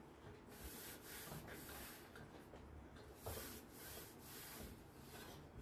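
Near silence with a few faint rubbing, rustling swishes.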